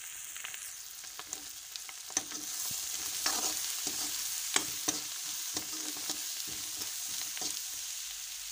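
Julienned carrot, radish, onion and green chilli sizzling in hot oil in a wok, stirred and scraped with a spatula, with frequent short clicks and scrapes of the utensil against the pan over a steady sizzle.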